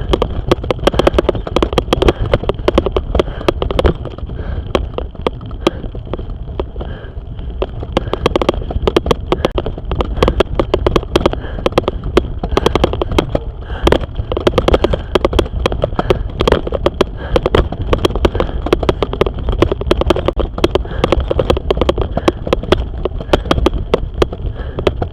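A cyclist breathing hard while pedalling uphill, a swelling breath about once a second, over a constant dense rattle of clicks and a low rumble.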